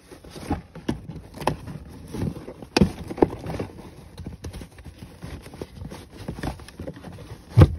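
A hand rummages under a car's pulled-up floor carpet: irregular rustling, scraping and light knocks, with one loud thump near the end.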